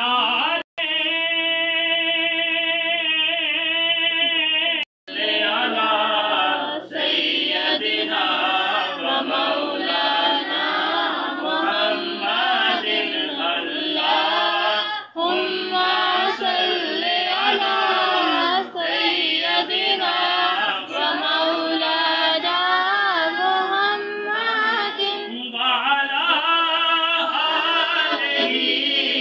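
Devotional chant-style singing by voices, with a long held note in the first few seconds and then a flowing, melismatic melody.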